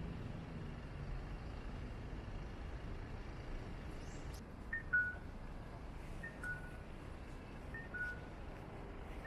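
Audible pedestrian crossing signal sounding a two-note electronic cuckoo call, a higher tone then a lower one, repeating about every second and a half from about halfway through. Low city traffic hum runs underneath.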